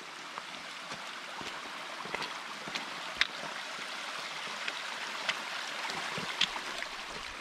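Small woodland creek running over rock ledges: a steady rush and trickle of water that grows slightly louder, with a few light clicks.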